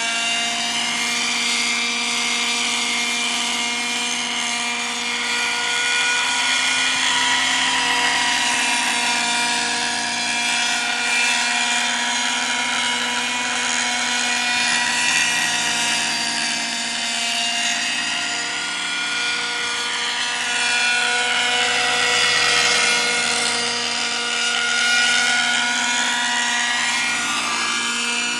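Raptor 50 nitro RC helicopter in forward flight: its glow engine and rotors give a steady high whine. The pitch sinks and rises as it passes by, once around the middle and again near the end.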